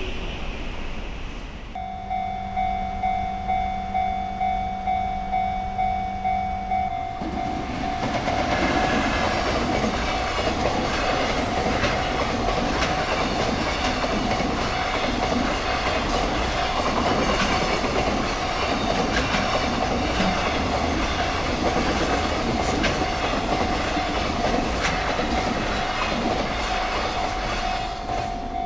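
Level-crossing warning bell ringing steadily, about two strikes a second. A train horn sounds for about five seconds near the start. From about eight seconds in, a train passes through the crossing with wheels clattering over the rail joints.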